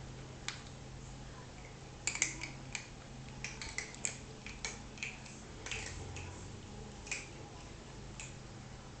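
A dog crunching dry kibble: a run of short, sharp crunches and clicks, bunched between about two and seven seconds in.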